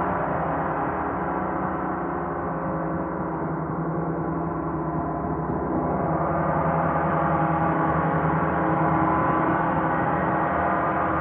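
Large hanging gongs played continuously, giving a dense sustained wash of many overlapping ringing tones with no distinct single strikes. The wash swells slightly in the second half.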